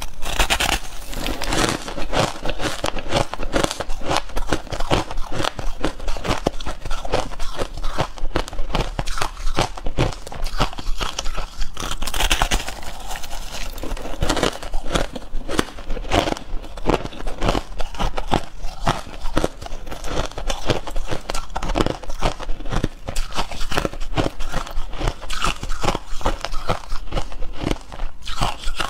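A person biting and chewing packed crushed ice: a dense, continuous run of crisp crunches and crackles.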